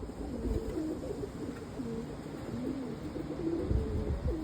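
Several cock roller pigeons cooing in courtship display, a steady overlap of low warbling coos. Wind buffets the microphone in low rumbling gusts, strongest near the end.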